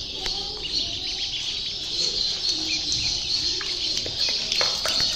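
A group of ducklings peeping steadily in a high-pitched chorus.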